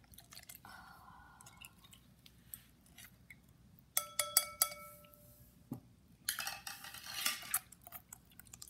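A metal spoon clinks against a glass mixing bowl several times about halfway through, and the bowl rings briefly after each clink. Around this, borax-and-glue slime kneaded by hand makes soft wet squishing and sticking sounds, with a longer noisy squelch a couple of seconds after the clinks.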